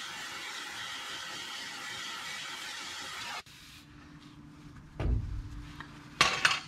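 Gas torch flame hissing steadily as it heats a seized leaf-spring shackle bolt red hot, cutting off abruptly about three and a half seconds in when the torch is shut off. Then comes a low hum, a dull thump about five seconds in, and a loud sharp clatter near the end.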